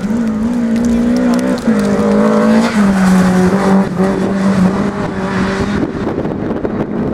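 Classic Lada rally car's four-cylinder engine at high revs as it drives past at speed. The engine note steps in pitch twice in the first three seconds, then holds steady. About six seconds in it gives way to a noisy rush as the car moves away.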